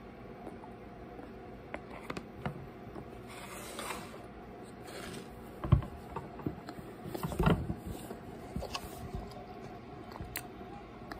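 Scattered knocks and rustles of arms and hands on a tabletop and on the recording phone, with one sharp thump a little past halfway and a cluster of knocks soon after.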